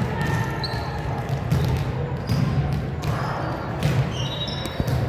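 Basketballs bouncing on a gym floor during pregame warm-ups, with many dribbles overlapping irregularly and short high squeaks in between.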